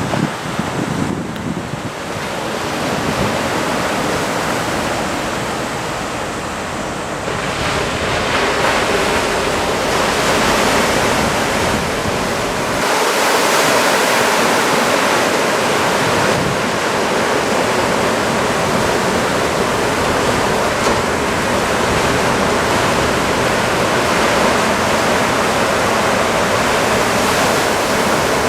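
Ocean surf from typhoon swell breaking and washing continuously. The wash grows fuller and louder about a quarter of the way in.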